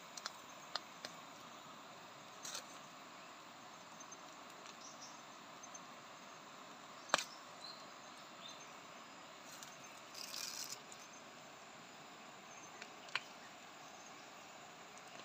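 Faint forest-floor ambience with a few scattered sharp snaps and clicks, the loudest about seven seconds in. About ten seconds in there is a short rustle of dry leaves and twigs as hands search through the leaf litter.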